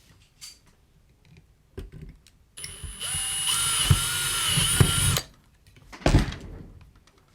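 Electric drill spinning up and drilling a hole for about two and a half seconds, its whine rising then holding steady before it stops. A single knock follows about a second later.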